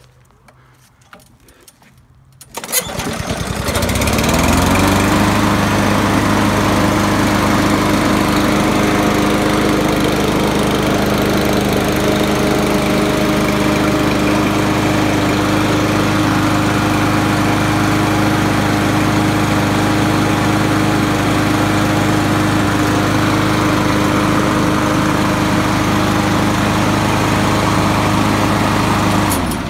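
Ariens push lawnmower's Kohler Courage XT-6 OHV engine starting about two and a half seconds in, catching at once and settling within a second or two into steady running, then shutting off near the end. It runs cleanly with its carburetor cleaned and its auto-choke linkage reconnected.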